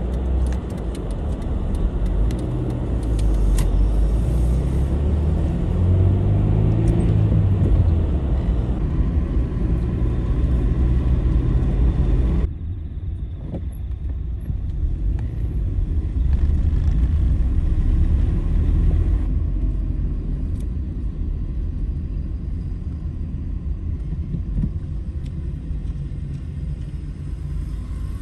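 Car engine and road rumble heard from inside the cabin while driving, the engine note rising for a few seconds as the car accelerates. About halfway through the sound changes abruptly, becoming duller, then settles into a steady low rumble.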